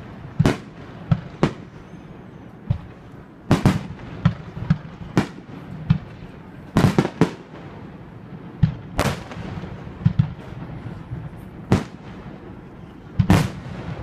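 Aerial firework shells bursting, a string of sharp booms at irregular intervals, several coming in quick pairs and clusters.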